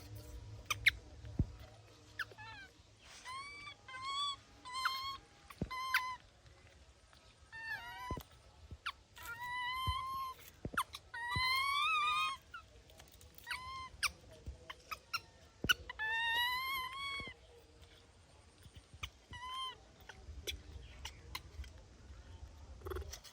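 Baby monkey giving many short, high-pitched arched calls, some singly and some in quick runs of several a second, with a few light clicks between them.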